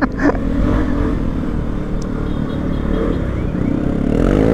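Vespa scooter engine running steadily at riding speed, with wind rush on the handlebar-mounted camera. Near the end an engine note rises and falls once.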